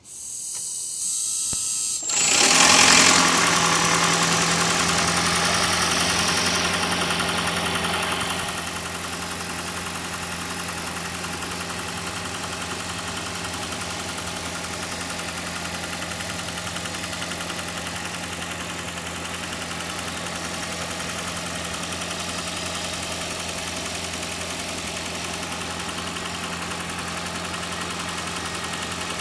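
Toyota Prius 2ZR-FXE four-cylinder gasoline engine being started: it is spun up and catches about two seconds in, runs at a raised, louder speed for several seconds, then settles to a steady idle.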